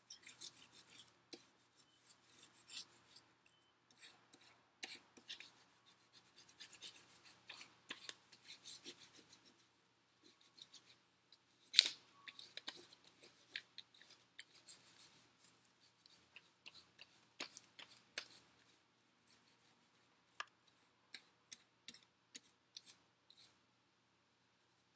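Peeled wax crayon rubbed on its side across paper laid over a leaf, making quick, uneven scratchy strokes, with one sharper click about halfway through.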